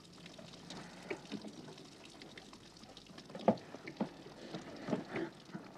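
A couple embracing and kissing: soft rustling of clothes and small wet kissing smacks, scattered and irregular, the loudest about three and a half seconds in, over the faint hiss of an old film soundtrack.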